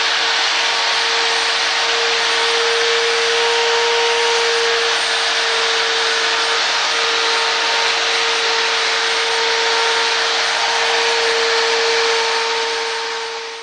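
Handheld electric angle grinder running steadily against a sculpture, a constant high motor whine over a grinding hiss, fading out near the end.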